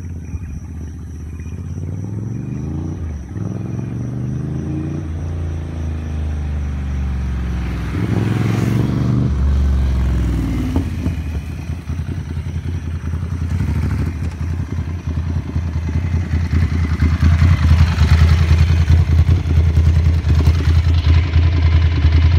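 Ducati Scrambler's air-cooled L-twin through an SC Project full exhaust, accelerating with the pitch rising and dropping back at several gear changes in the first ten seconds. After that it settles into a steady, pulsing low rumble that grows louder, loudest near the end.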